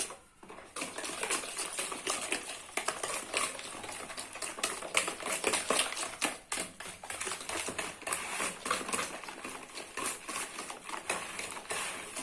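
Runny batter of eggs, sugar, oil and yogurt being beaten in a mixing bowl, the whisk clicking and tapping rapidly and unevenly against the bowl.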